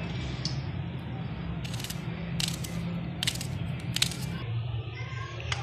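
Kitchen knife slicing through a red onion held in the hand: several short, sharp cuts at irregular intervals, over a steady low hum.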